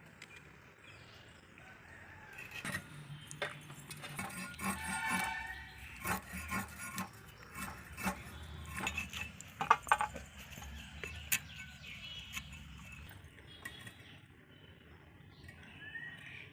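Metal kitchen utensils and dishes clinking and knocking in a run of irregular sharp clicks, the loudest about ten seconds in.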